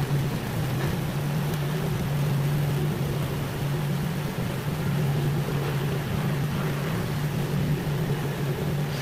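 TIP TIG welding arc on 904 stainless steel under argon, striking suddenly and then burning steadily with an even hiss over a constant low hum.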